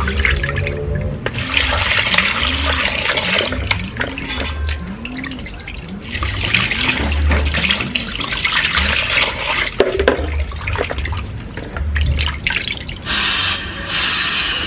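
Tap water running and splashing into a steel bowl of raw chicken wings as they are rinsed and rubbed by hand, in two main stretches. Near the end comes a loud steady hiss of gas escaping at the valve of a small LPG cylinder as a regulator is fitted.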